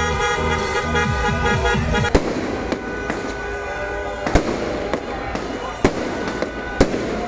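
Music plays for about the first two seconds, then fireworks take over: sharp bangs about a second apart, with crackling between them.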